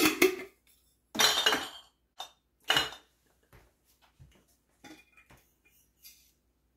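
Glass spice jars clinking and knocking as they are picked up, opened and set down. There are a few louder knocks in the first three seconds, then lighter clicks.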